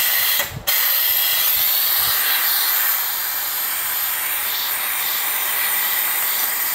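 Air-powered vacuum brake bleeder hissing steadily as compressed air runs through it, drawing fluid and air out of the brake caliper's bleed screw. The hiss cuts in sharply, stutters briefly within the first second, then holds even.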